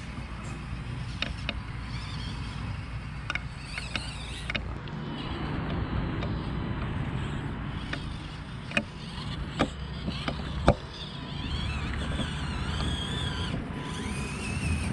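Small electric motors and gearboxes of 1/24-scale RC rock crawlers whining steadily as they crawl over rocks, with sharp clicks and knocks of tyres and chassis against the rock, the loudest a few in a row about two-thirds of the way through.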